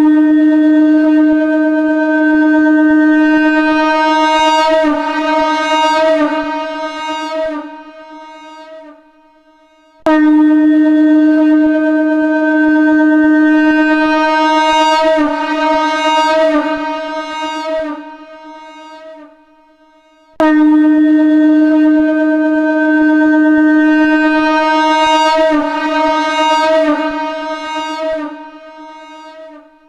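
Shankh (conch shell) sounding at D#, three long blasts about ten seconds apart. Each is a steady loud note for several seconds that then wavers and breaks up before fading out.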